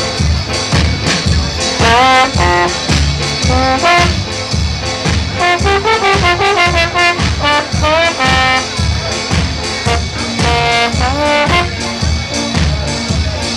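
Upbeat background music with a steady beat, led by brass horn lines with short upward slides.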